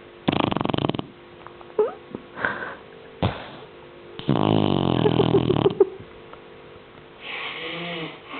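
Snoring in separate breaths: a rattling snore about half a second in, a few short snorts, then a longer snore with a wavering pitch about four seconds in, and a softer breath near the end.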